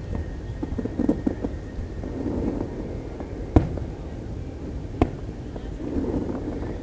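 Fireworks shells bursting: two sharp bangs about a second and a half apart over a steady low rumble.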